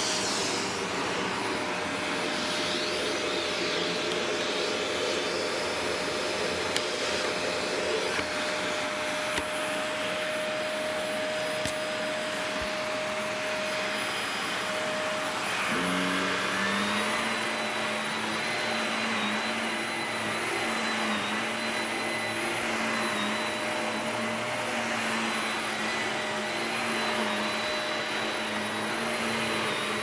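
Shark Navigator upright vacuum cleaner running steadily on carpet. Its motor whine shifts to a different pitch about halfway through.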